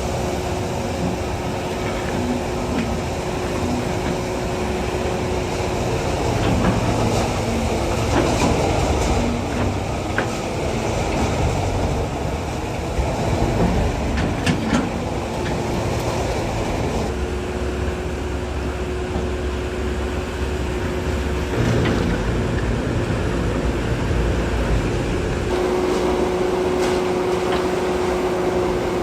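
Hydraulic excavator working: the diesel engine runs steadily with a constant hydraulic whine, rising and falling with load. There are a few sharp knocks about a third of the way in and again near the middle, as the bucket handles debris.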